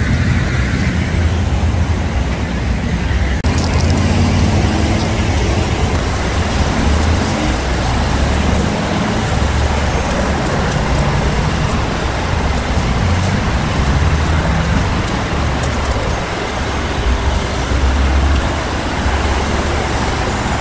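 Steady freeway traffic noise with a deep low rumble underneath.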